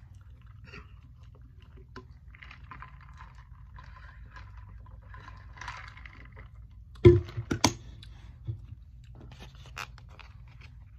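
A stainless-steel insulated water bottle being handled: faint sounds of drinking, then a few sharp clacks about seven seconds in as it is set down on the table, followed by lighter clinks of a bowl being moved.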